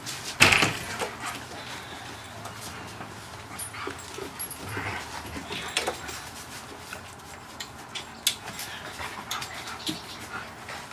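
Several puppies whimpering and panting as they scramble over a person's lap, with scuffling and scratching throughout. A loud sharp noise about half a second in.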